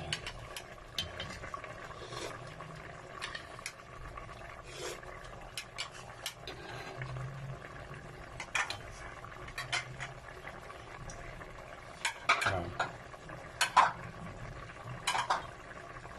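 Wooden spatula stirring a stainless steel pot of chicken stew in thick tomato sauce, scraping and knocking against the pot, with several louder knocks in the last few seconds.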